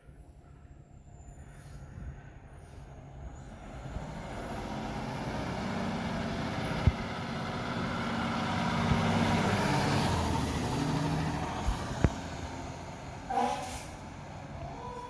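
Fire truck approaching and driving past, its engine growing louder to a peak about two-thirds of the way through and then easing off, with a short hiss near the end.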